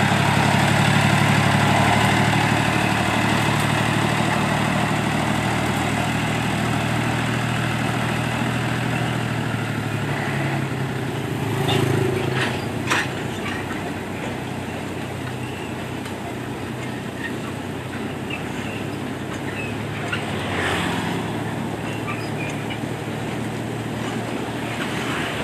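Small diesel sugar-cane locomotive's engine running steadily as it pulls away down the track, slowly growing fainter. A few short sharp clicks come about halfway through.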